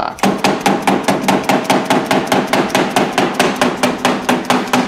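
A mallet tapping quickly and evenly on a pry tool wedged into a snowmobile's hyfax slider, about six strikes a second, driving the slide back along the rear suspension rail.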